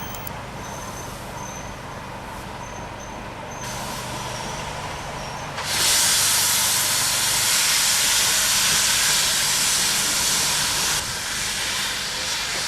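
A train at the signal box gives a loud, steady hiss of escaping pressure that starts about six seconds in and eases near the end, over a low steady engine hum.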